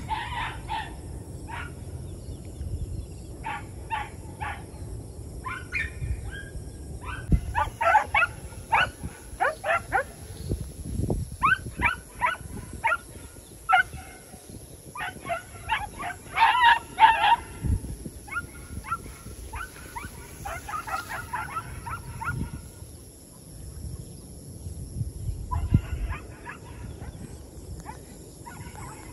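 Hunting dogs barking and yelping in quick strings of short, high calls, with a brief lull about three quarters of the way through: the dogs giving voice on the hunt for a civet in the rice paddy.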